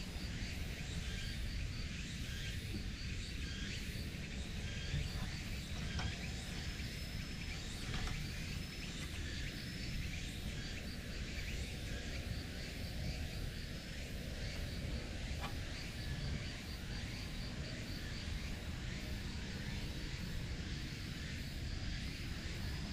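Outdoor ambience of insects chirping steadily over a low, even rumble, with a few faint clicks.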